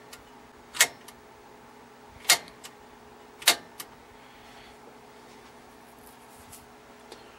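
Front-panel rotary switch of a 1949 Hallicrafters T-54 television clicking through its detent positions as it is turned by hand: four sharp clicks about a second apart, each followed by a softer one, over a faint steady hum.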